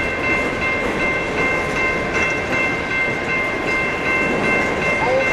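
Coal train hopper cars rolling past: a steady rumble of steel wheels on rail, with a steady high squeal held throughout.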